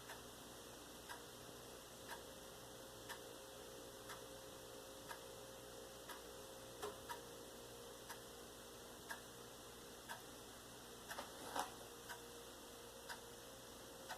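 Clock ticking faintly, one tick about every second, with a few extra irregular clicks partway through and a bit later.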